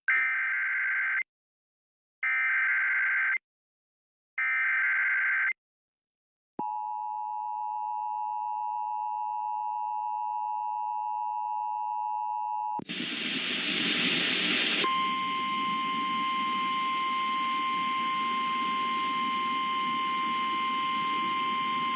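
Emergency Alert System alert opening: three short screeching data bursts (the SAME header), each about a second long and evenly spaced, then the steady two-tone attention signal for about six seconds. About 13 s in it switches to noisy relayed weather-radio audio, and from about 15 s a single steady alarm tone runs under static; this is the NOAA Weather Radio warning tone that comes before a tornado warning.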